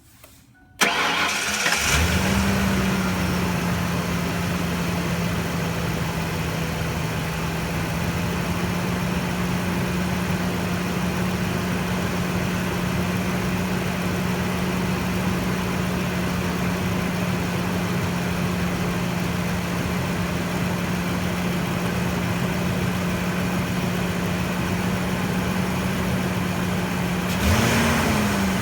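A 1999 Mercury Mountaineer's 5.0 L V8 starts about a second in and then idles steadily, during a vacuum leak test done through the power brake booster hose. Near the end the engine speed rises briefly and settles back.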